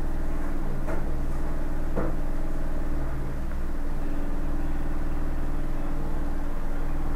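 Steady machine hum made of several unchanging low tones, with two faint clicks about one and two seconds in.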